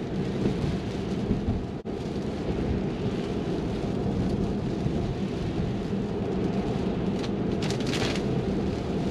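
Cabin noise inside an electric Tesla driving in heavy rain: a steady low rumble of tyres on the wet road, with rain hitting the glass roof and windshield. A short burst of hiss comes near the end.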